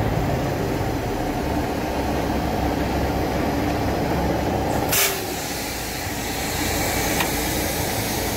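Heavy truck's diesel engine running, heard from inside the cab while the truck drives slowly. About five seconds in, a short sharp burst of compressed air is followed by a steady hiss.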